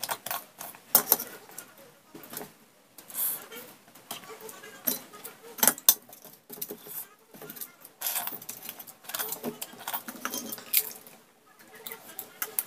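Eating at close range: irregular clicks and clinks of stainless steel bowls against a steel plate, mixed with the wet smacking and chewing of eating by hand.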